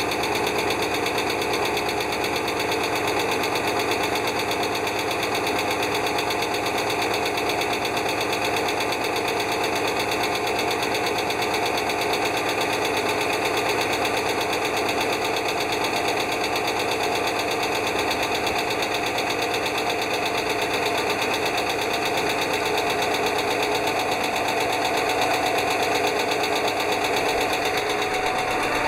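American school bus engine running steadily with a rapid, even ticking from the valvetrain, which the owner suspects is a failing hydraulic lash adjuster (lifter).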